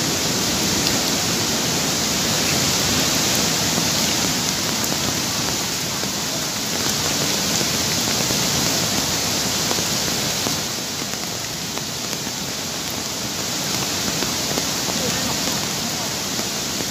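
Swollen, muddy flooding river rushing in a steady wash of noise, mixed with heavy rain.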